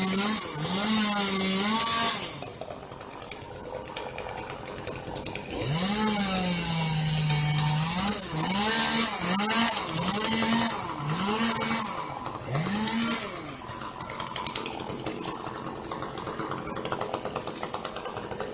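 Two-stroke chainsaw cutting eucalyptus wood, revving in bursts: a long high-revving stretch, then several short revs in a row, each rising in pitch and dropping back. Near the end it settles to a lower, steadier idle.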